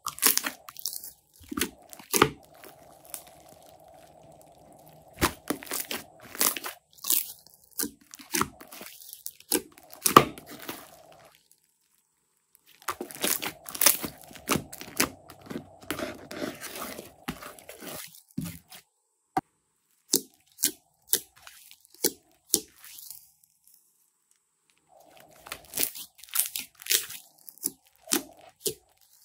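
Fluffy slime being squeezed and kneaded by hand: wet squishes and sharp air-bubble pops and clicks in quick clusters, with a couple of short pauses.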